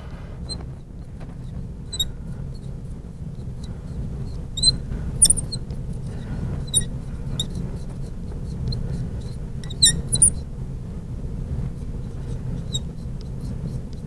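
Marker squeaking and ticking on a glass lightboard as words are written: short high squeaks scattered through, over a steady low hum.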